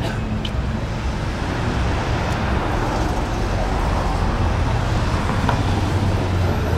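Steady street traffic noise, a continuous rumble of cars going by.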